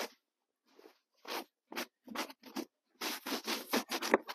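Snow crunching in a series of short, irregular crunches, sparse at first and coming faster near the end.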